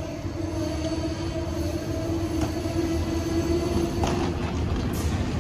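Amtrak Northeast Regional train of Amfleet coaches at the platform: a low rail rumble under a steady whine that fades about four seconds in, with a few sharp clicks near the end.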